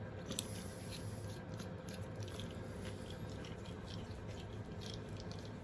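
Faint, scattered small clicks and scrapes of cleaned metal bolts, nuts and washers being handled and fitted back together, over a steady low hum.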